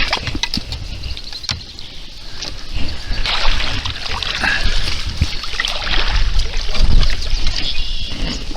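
Water sloshing and splashing around a fishing kayak, with scattered light knocks.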